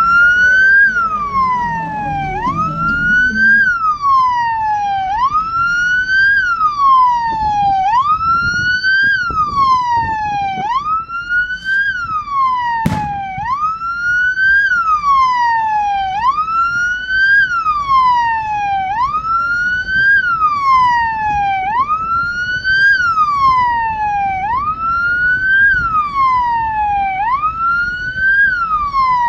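Electronic vehicle siren sounding a steady repeating sweep: a quick rise in pitch, then a slower fall, about once every second and a half. A single sharp click cuts through a little under halfway in.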